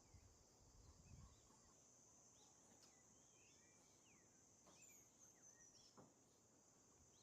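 Faint rainforest ambience: scattered short bird chirps over a steady high-pitched hiss.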